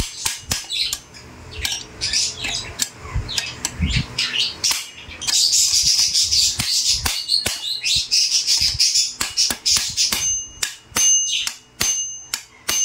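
A hammer striking a steel punch held against the newly fitted clutch of a 52 cc chainsaw: a run of sharp metallic taps. In the last few seconds each tap leaves a short bell-like ring. Birds chirp loudly in the background for a few seconds midway.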